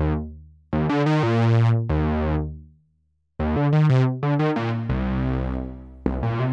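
Synthesizer notes played through an Alesis Ineko multi-effects pedal: a sequence of deep, sustained notes with bright overtones, changing every half second to a second. The sound dies away to a brief silence about three seconds in, then the notes start again.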